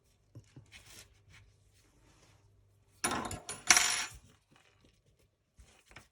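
Small metal tools and engine parts clinking and scraping on a workbench while a screwdriver works at a nitro engine's carburettor, with a loud metallic clatter about three seconds in lasting about a second.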